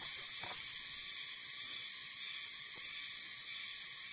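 Steady high-pitched background hiss, with a couple of faint rustles as the taslan nylon poncho fabric is handled close to the microphone.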